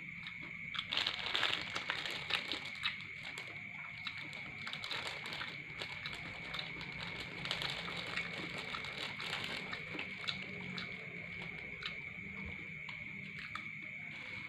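Eating sounds: a spoon scraping and clicking on a paper food wrapper and the paper crinkling, busiest about a second in. A steady high trill of crickets runs underneath.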